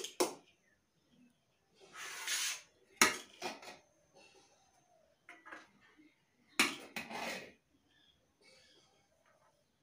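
Metal serving spoon scraping and clinking against the inside of an aluminium pot as cooked rice is dished out onto steel plates: a few sharp clinks, with longer scrapes about two seconds in and again about seven seconds in.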